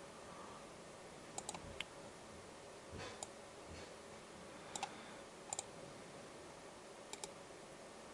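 Sharp computer mouse clicks in a quiet room, mostly in quick pairs like double-clicks, every second or two. There is a softer knock about three seconds in.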